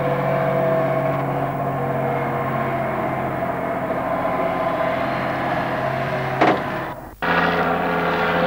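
An engine running steadily with an even drone. About six and a half seconds in there is a sharp click and a brief dropout, then a steady engine drone at a different pitch resumes.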